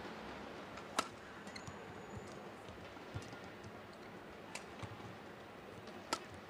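Badminton rally: rackets striking the shuttlecock, a series of sharp pops one to two seconds apart, loudest about a second in and near the end, over a faint steady arena background.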